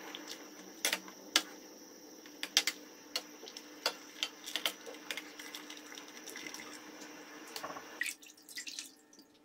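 A metal mesh sieve and skimmer knocking and clinking against a stainless steel pot as a sheet of boiled dough is lifted out of the water, with water dripping and sloshing. A steady background hiss stops about eight seconds in, followed by a few softer splashes as the dough goes into cold water.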